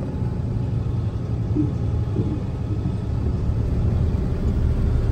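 Semi truck driving on a snowy road, heard from inside the cab: a steady low rumble of engine and road noise.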